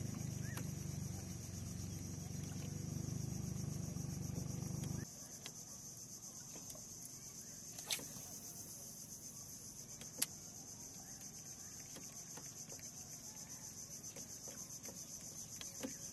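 Steady high-pitched chorus of evening insects such as crickets, under a low rumble that cuts off suddenly about five seconds in. Two sharp clicks stand out a couple of seconds apart near the middle.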